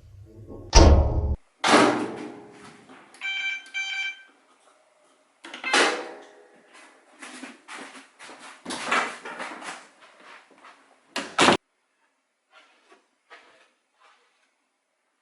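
A washing machine being loaded and started: thumps and rustling of handling, two short electronic beeps from its control panel about three seconds in, and a sharp clack shortly before the end.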